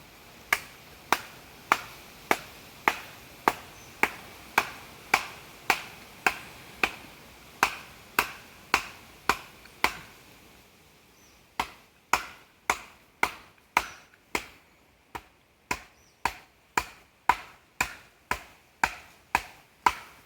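Hammer striking again and again, one sharp ringing blow a little under twice a second. Near the middle the blows pause for about a second and a half, then resume slightly faster.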